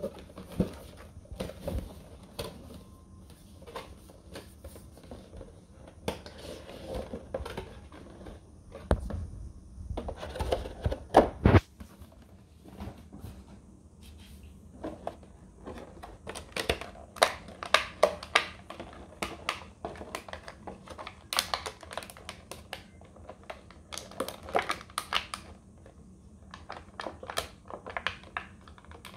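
Cardboard box and clear plastic blister packaging being handled: repeated clicks, taps and crinkles of stiff plastic, with a few heavier knocks about ten seconds in.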